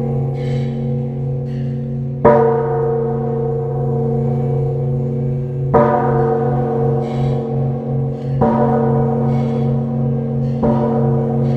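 Large Buddhist temple bell struck four times, the strikes coming a little closer together each time. Each strike sets off a long, humming ring with a deep steady hum that carries on into the next strike.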